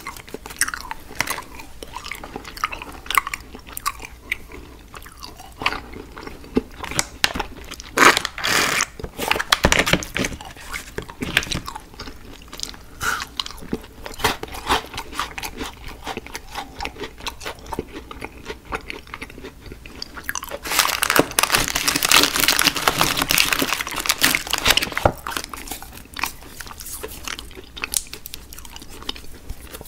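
Close-miked candy being bitten and chewed, with irregular crunches and mouth clicks, and a louder, denser stretch of crunching about two-thirds of the way through.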